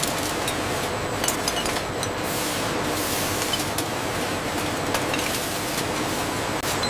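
Bottling-line noise: steady machinery hiss with frequent light clinks and ticks of bottles knocking together on the conveyor.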